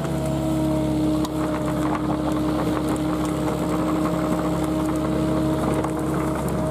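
Komatsu PC45MR mini excavator's diesel engine running at a constant speed with a steady whine, as its bucket works into a tree stump's root mass with scattered snaps and cracks of roots.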